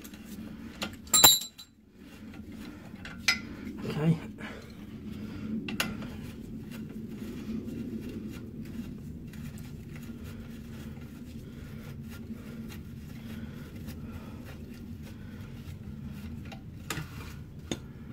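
Ratchet with a deep 15 mm socket on an extension undoing a seized exhaust bracket bolt: one loud sharp metallic crack about a second in as the bolt breaks loose, then light ratchet clicks and a few metal knocks as it is wound out, over a steady low hum.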